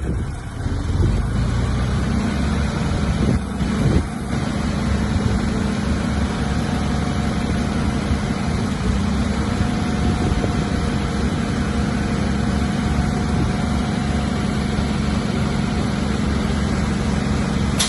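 Heavy diesel engine of earthmoving equipment running steadily under load, with a couple of brief knocks about three and a half to four seconds in.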